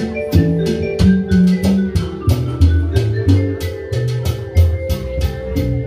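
Instrumental music with a drum kit and bass line, playing a steady beat.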